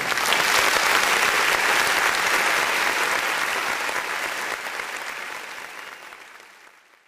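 Applause from a crowd, clapping densely, fading out over the last three seconds.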